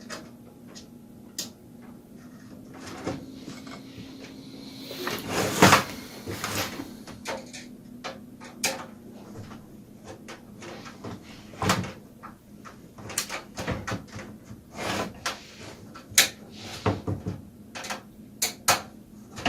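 Hands working on a computer case: a series of separate clicks and knocks from parts and panels being handled, with a louder rattling cluster about five to six seconds in. A faint steady hum runs under the first six seconds.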